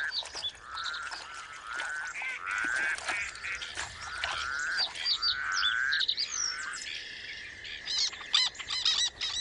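Birds calling: a string of short rising calls, each about half a second, then a steady high tone held from about six seconds in. Quick high chirps run on top and come thick near the end.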